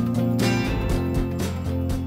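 Background music with a steady beat, gradually getting quieter.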